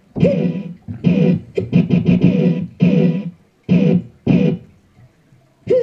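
Electronic keyboard playing a string of about a dozen short novelty-voice notes, each starting sharply and dying away, with a quick flurry about two seconds in.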